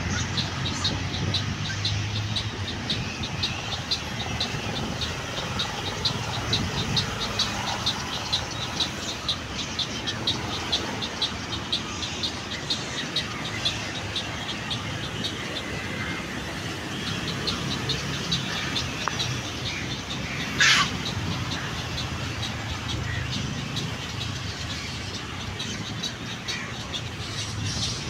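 Birds around a tree-top nesting colony of waterbirds and egrets, one calling in a rapid, regular series of high ticks about three a second that stops and starts, over a steady low rumble of road traffic. One brief, loud rising squeal stands out about two-thirds through.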